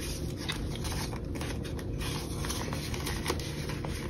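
A paper banknote and a clear plastic binder cash envelope being handled: light rustling with small scattered clicks as the bill is slipped into the pocket.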